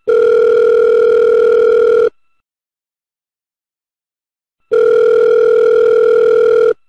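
Telephone ringback tone on an iPhone's speakerphone: two steady rings of about two seconds each, the second starting about four and a half seconds in. It signals that the called line is ringing and has not been answered.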